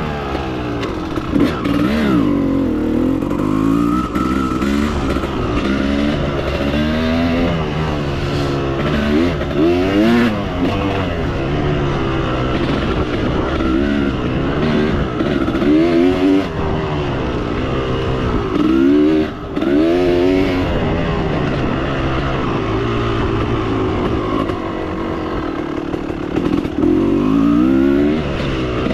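Motorcycle engine revving hard through the gears, its pitch climbing and dropping back over and over as the throttle is opened and closed.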